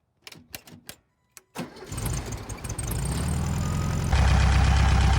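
A few short clicks, then a VW Beetle's air-cooled flat-four engine starts about a second and a half in and settles into a steady idle, louder near the end. It idles smoothly with new vacuum caps fitted on the carburetor, the vacuum leak that made it run rough now sealed.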